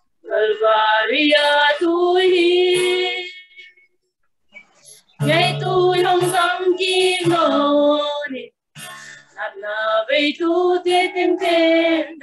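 Two women singing a hymn together in three sung phrases with short pauses between them.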